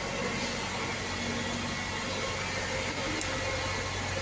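Diesel double-decker bus engine running close by, a steady hum, with one short sharp knock about a second and a half in.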